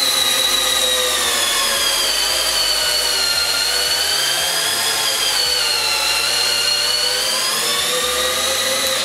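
Total TDLI2002E 20V cordless drill/driver in first gear, clutch bypassed in drill mode for full torque, driving an 8 x 240 mm screw into a wooden beam. Its motor whines steadily, the pitch sagging a little under load midway and recovering, and it stops right at the end.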